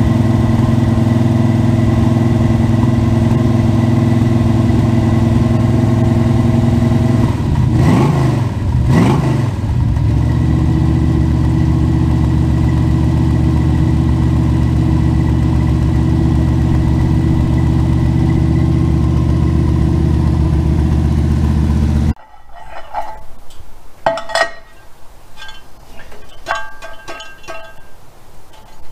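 1971 Chevrolet Nova's V8 idling steadily, blipped twice about eight and nine seconds in, the sound harsh and distorted by the camera's faulty microphone. About 22 seconds in it cuts off suddenly, leaving a few light metallic clinks.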